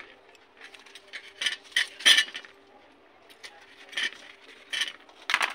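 Knife blade clinking against a stainless steel plate as green chilies are cut into pieces: about six sharp clinks, irregularly spaced, the loudest about two seconds in. A faint steady hum runs underneath.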